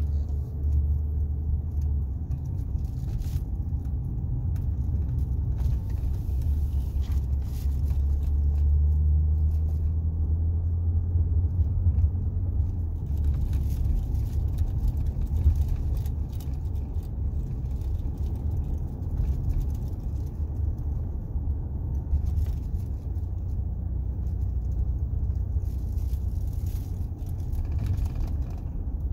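Steady low rumble of a car's engine and tyres heard from inside the cabin while driving, swelling a little about eight seconds in.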